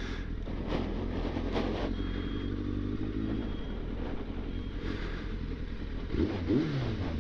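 1999 Yamaha FZS600 Fazer's inline-four engine running steadily under way. The engine note sweeps up and back down about six seconds in.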